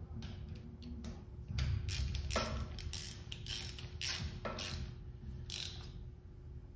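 Hand socket ratchet clicking in several short runs of strokes, tightening bolts on an engine by hand.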